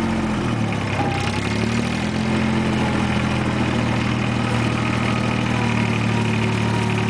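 Diesel farm tractor engine running steadily as the tractor drives along in first gear. The engine note dips briefly and recovers in the first second or two, then holds an even drone.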